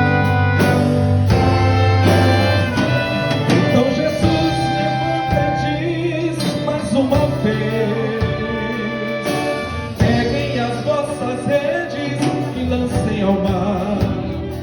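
Symphonic wind band playing an instrumental passage of a gospel song, brass and woodwinds holding sustained chords under a moving melody.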